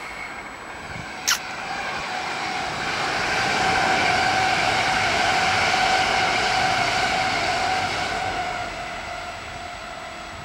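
S-Bahn München electric multiple unit (class 423) passing: its traction motors whine in several steady tones over rolling noise that swells to a peak mid-way, then fades as the train moves off. About a second in there is a brief, sharp, high chirp that falls in pitch.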